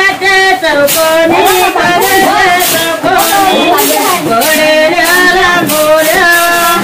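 Women singing a traditional Konkan wedding song while cleaning rice, a melody with long held notes.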